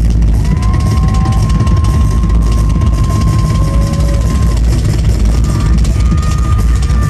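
Live drum solo on a large rock kit, recorded on a phone so close to overload that the drums blur into a loud, constant low rumble. A high, steady, whistle-like tone sounds over it for several seconds, with a second one near the end.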